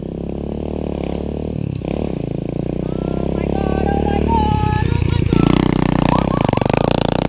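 Small four-stroke SSR 125 pit bike engines running: one close by, steady at first, while another rides off toward the climb, the engine note growing louder and shifting in pitch about two thirds of the way in.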